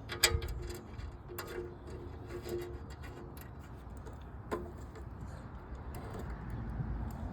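A few sharp metallic clicks and taps, the first the loudest, from hand work fitting a nut and washer onto a starter solenoid terminal. A pigeon coos in the background during the first half.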